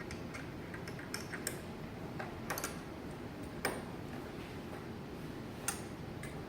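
Scattered light clicks and taps of small hard parts and tools being handled on a workbench, about half a dozen, the sharpest about three and a half seconds in, over a steady low room hum.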